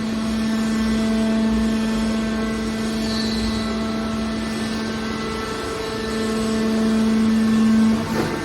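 Hydraulic scrap-metal baler's power unit running, its pump and motor giving a steady whining hum that grows louder toward the end.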